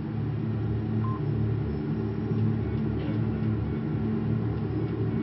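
A steady low droning hum with held low tones and no sharp events.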